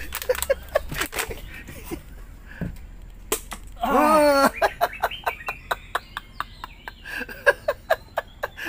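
Irregular sharp clicks and knocks, with a brief wavering voice-like call a little under four seconds in.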